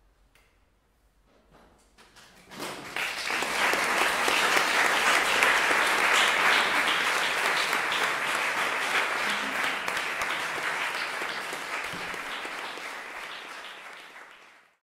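Audience applauding: a few scattered claps, then full applause from about two and a half seconds in, slowly thinning and then cutting off suddenly just before the end.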